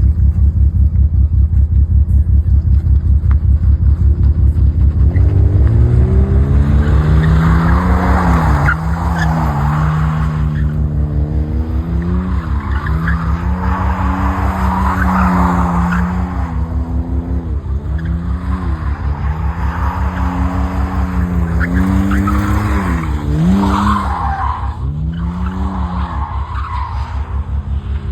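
BMW E46 engine under load on a drive: the engine note climbs from about five seconds in and then holds at high revs, dipping briefly and picking up again every few seconds as the throttle is lifted and reapplied. Patches of hissing noise run alongside it.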